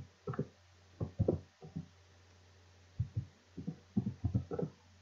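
Computer keyboard being typed on: a run of about fifteen short, dull key thuds in uneven groups of two or three, over a low steady hum.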